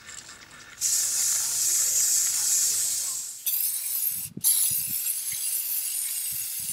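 Aerosol can of PlastiKote Metallic silver spray paint hissing as it sprays: one steady burst of about two and a half seconds starting about a second in, then after a short break a longer hiss that wavers as the can sweeps across the vase, cut by a brief gap.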